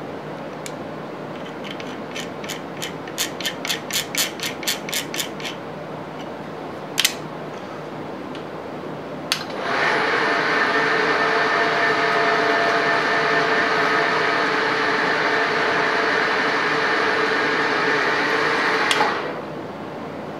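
A quick run of about a dozen mechanical clicks, then two sharp single clicks. Then a milling machine's motor starts, runs steadily for about nine seconds and shuts off.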